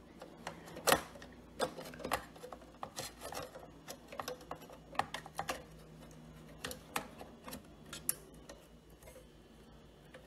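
Scattered clicks and knocks of a low-profile graphics card being pushed into a desktop computer's PCIe slot and handled against the metal case, the loudest about a second in.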